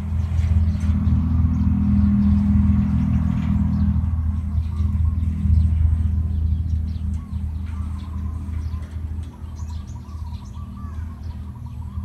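A steady low rumble, like a motor or distant traffic, with birds chirping over it, the chirps busier in the second half.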